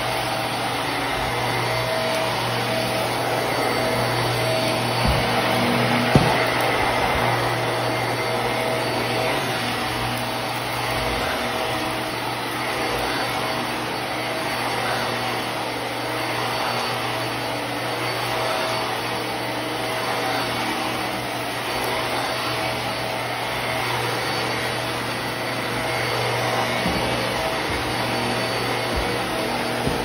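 Hart Pet Grade upright vacuum cleaner running steadily while it is pushed over carpet, with a short knock about six seconds in.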